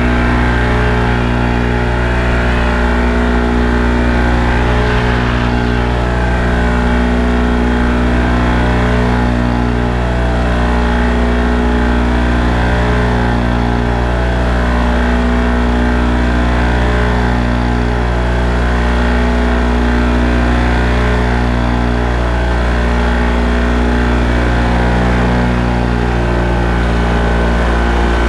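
Paramotor engine and propeller running steadily in flight, holding one pitch throughout.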